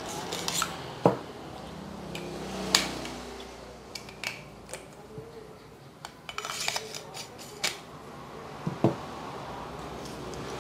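Handling a wireless handheld microphone: scattered clicks and taps as its battery barrel is unscrewed and pulled off to reach the batteries, with a quick run of clicks partway through.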